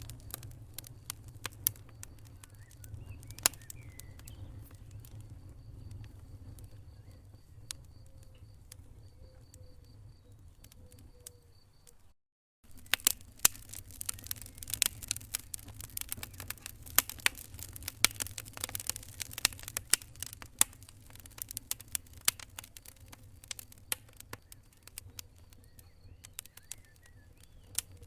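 Wood fire crackling in a fireplace: irregular sharp pops and snaps over a low steady rumble of the flames. The sound cuts out for a moment about twelve seconds in, then comes back with denser, louder crackling.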